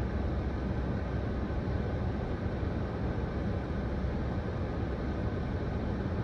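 Steady low rumble heard inside a car's cabin as it idles at a stop.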